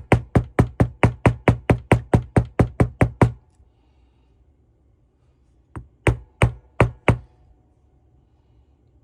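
Rapid, evenly spaced hammer taps, about four a second, that stop a little over three seconds in, then a short run of five more taps about two-thirds through: a part being driven home in a McCulloch leaf blower's crankcase while its seals and bearings are installed.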